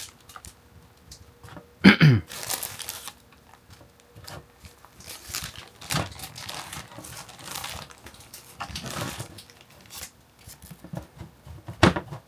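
Clear plastic bag crinkling and rustling as handfuls of dry substrate are scooped out of it and into a small plastic seed tray, in irregular bursts with the loudest rustle about two seconds in.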